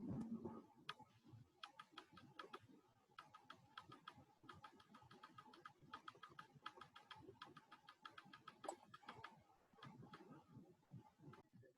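Faint, irregular clicking of a computer keyboard and mouse, in quick runs for a few seconds at a time.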